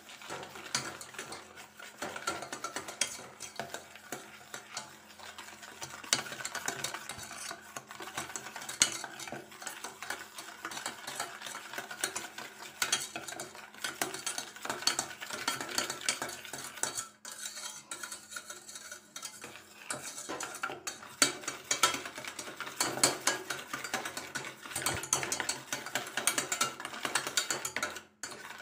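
Wire whisk beating yogurt and powdered sugar in a metal pan, its wires scraping and clicking against the pan over and over; the whisking lets up briefly a little past halfway, then resumes.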